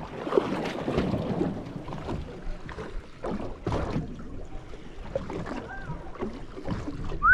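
Water lapping and slapping against the hull of a drifting boat, with wind on the microphone and a few scattered knocks.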